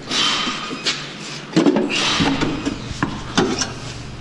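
Gloved hands rubbing and scraping on the old driveshaft as they flex its universal joint, with a few sharp clicks, about a second in and twice near the end. The joint is being checked for notchiness.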